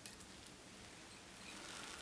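Faint scratching and a few tiny clicks of fingers winding holographic mylar tinsel around a fly hook's shank.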